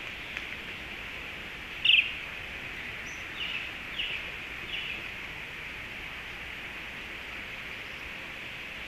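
A few short, falling chirps from a small animal over a steady high hiss: one loud chirp about two seconds in, then three or four fainter ones close together.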